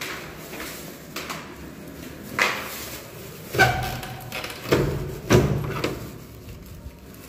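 Several knocks and clunks at uneven intervals, the loudest in the middle, with a brief squeak about three and a half seconds in.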